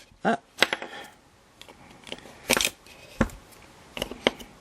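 Chopsticks clicking and tapping against small plastic model kit parts as the parts are held down and pressed together, in a few scattered, irregular clicks.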